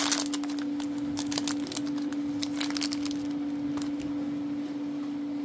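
Foil booster pack wrapper being torn open and crinkled by hand, with dense sharp crackles at first that thin out after about three seconds. A steady low hum runs underneath.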